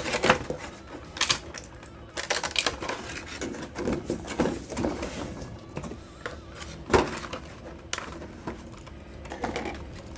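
Action figure packaging and its small contents being handled: irregular clicks, taps and short rustles, with a sharper click about 7 seconds in.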